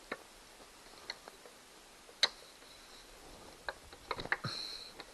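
Irregular sharp clicks of a screwdriver working a stubborn screw on an outboard motor's cover. The clicks come singly and a few seconds apart, with the loudest a little past two seconds in and a quick cluster of them near the end.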